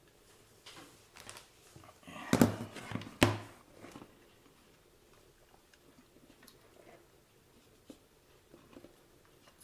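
Handling clicks and knocks from a hot glue gun being worked on an opened RC car transmitter: a loud cluster of sharp clicks about two to three seconds in, then only faint scattered ticks.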